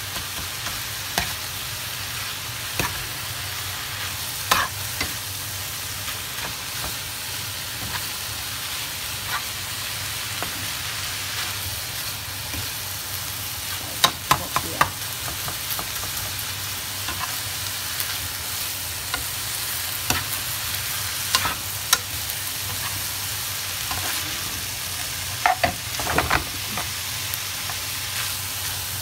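Minced pork, bean sprouts and carrot sizzling steadily in a hot oiled pan while being stir-fried, with a metal spoon scraping and clicking against the pan now and then, in a few quick clusters.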